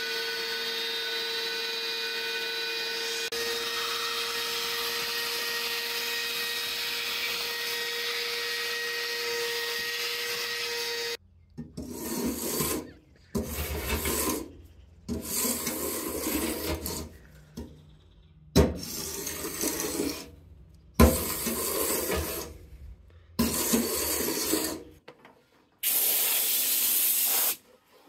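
A shop vacuum runs steadily and cuts off about eleven seconds in. A hand scraper then works over a painted metal panel in short, uneven strokes, with a couple of sharp knocks. Near the end a compressed-air blow gun hisses in two steady blasts.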